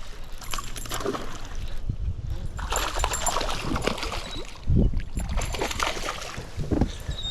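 Water splashing and sloshing as a hooked bass thrashes at the surface while it is fought in, with a couple of low thumps partway through.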